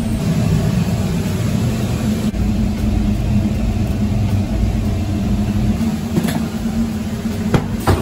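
Freshly rebuilt condensate pump on a commercial steam boiler running, its electric motor giving a steady low hum and rumble. A few sharp knocks near the end.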